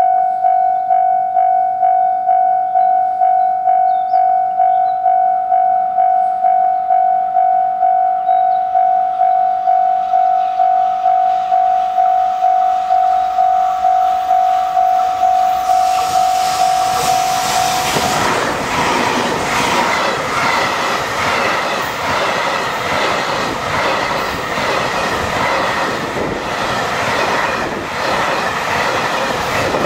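Japanese level-crossing alarm ringing steadily at about two strokes a second. From about 15 seconds in, a JR Freight M250 Series Super Rail Cargo electric freight train approaches and passes at speed, its wheels clattering over the rail joints and drowning out the bell.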